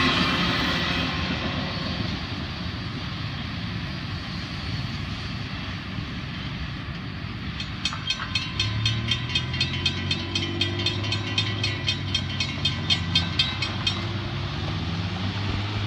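The tail end of a freight train rolls away, its rumble fading over the first few seconds. About eight seconds in, the grade-crossing warning bell starts ringing in rapid, even strikes as the gates rise, then stops abruptly about six seconds later. Meanwhile the waiting cars' engines start up and rev as they pull away across the tracks.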